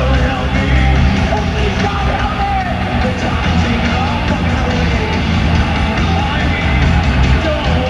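Heavy metal band playing live in an arena, recorded from within the crowd: loud distorted electric guitars over bass and drums, with pitch-bending lines in the middle range.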